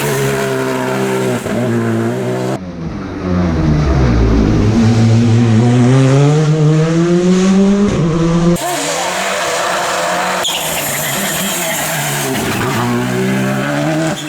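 Rally car engines at high revs in three short clips cut together, their notes dropping and climbing through gear changes. In the middle clip, the loudest, a car's revs fall as it slows and then rise in one long climbing note as it accelerates hard.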